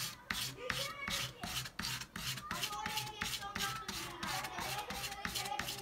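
Double-edged carving knife blade being sharpened on wet sandpaper, rubbed back and forth in quick, even rasping strokes about three times a second.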